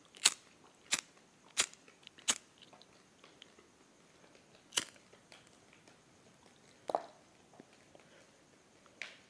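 Playing cards being dealt from a hand-held deck onto piles, each card landing with a short, sharp snap. Four snaps come in quick succession in the first couple of seconds, then three more spaced a couple of seconds apart.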